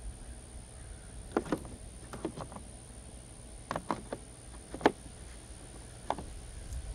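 Several sharp clinks and knocks of small metal parts being handled, about eight in all in small clusters, the loudest about five seconds in, over a low steady rumble.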